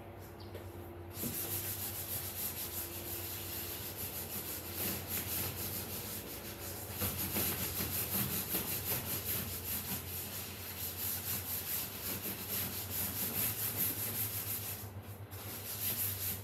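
Rubber-gloved hand scrubbing a white upholstered sofa cushion with cleaning cream: rapid, continuous back-and-forth rubbing that starts about a second in and pauses briefly near the end.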